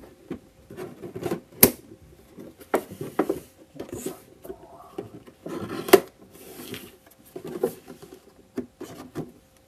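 Scissors cutting into a cardboard toy box: irregular snips and scraping rustles of blade on carton, with two sharp clicks, one about a second and a half in and a louder one about six seconds in.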